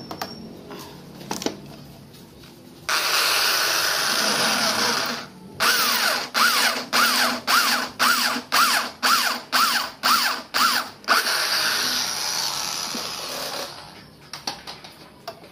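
Corded electric drill boring into a metal part held in a bench vise, enlarging a hole. It runs steadily for a couple of seconds, then is pulsed on and off in quick bursts, its pitch rising and falling, about two or three times a second. It then runs steadily again and winds down.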